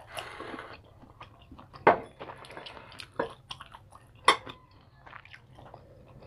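A wooden skewer clinking and tapping against ceramic bowls as food is speared and dipped in sauce: a string of short sharp clinks, the loudest two about two and four seconds in, with some chewing between them.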